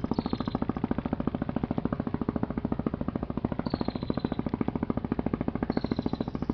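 A small engine running steadily with a rapid, even chugging. A few short, high, falling chirps sound over it.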